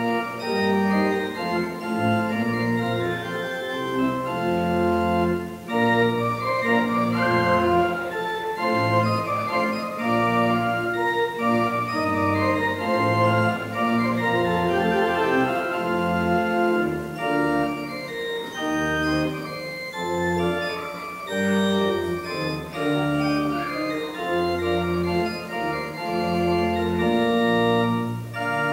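Church organ playing a slow processional: sustained chords over a low bass line that moves to a new note about every second.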